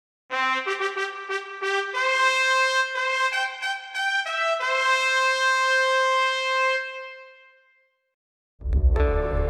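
Music: a solo brass instrument plays a short phrase of separate notes, then holds one long final note that fades away. After about a second of silence, strummed acoustic guitar music starts near the end.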